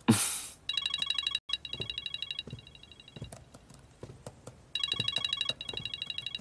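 Mobile phone ringing for an incoming call, an electronic trilling ringtone that sounds in quick warbling runs with short gaps between them. A brief loud rush of noise comes just before the ringing starts.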